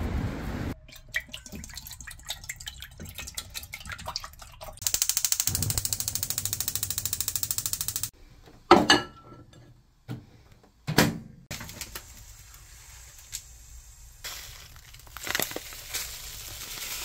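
Kitchen work sounds: water running or pouring for a few seconds, among scattered clicks and a couple of sharp knocks of utensils.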